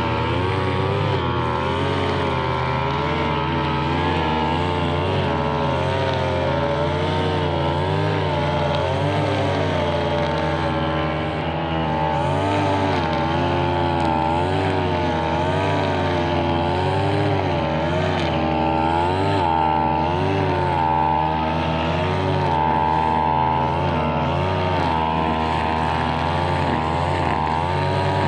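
Brushcutter engine running at high speed while trimming grass, its pitch dipping and recovering every second or so as the cutting load changes.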